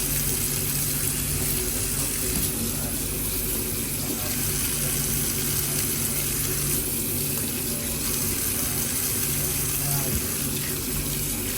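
Tap water running steadily into a sink as capsicums and potatoes are rinsed under it.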